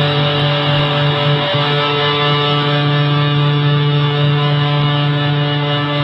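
Electric guitar played through a custom three-in-one effects pedal (a Rams Head Big Muff–style fuzz with two experimental modulated reverbs) into a small amp. One chord is held and sustains steadily.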